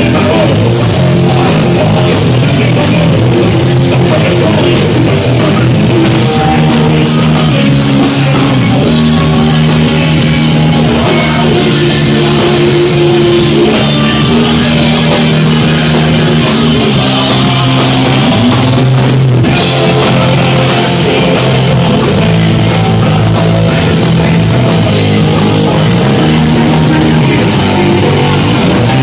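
Live heavy rock band playing loud: distorted electric guitar chords over bass and a drum kit with busy cymbals.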